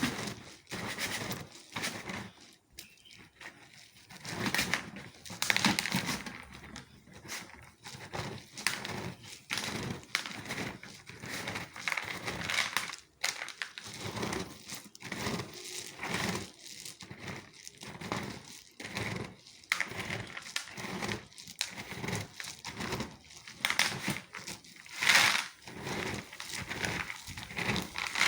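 Irregular rustling and crinkling of a cloth napkin pressed and rubbed over washed palm kernel nuts to pat them dry. Short clicks come through as the nuts shift under the cloth.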